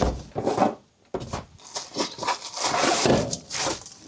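Cardboard product box being opened by hand, with card scraping and sliding and a soft thump at the start. After a brief pause about a second in, the handling noise resumes as a plastic-wrapped stainless steel tumbler is slid out of the box.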